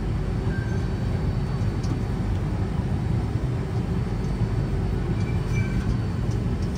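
Steady low rumble inside an Alstom C830 driverless metro train cabin at a station platform, with a few faint thin tones coming and going.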